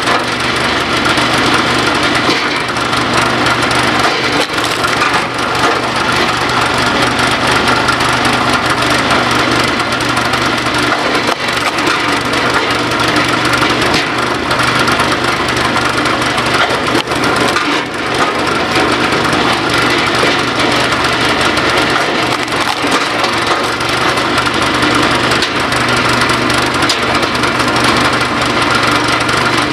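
Log splitter's small gas engine running steadily while logs are split, with repeated sharp cracks and splintering of wood as the rounds break apart.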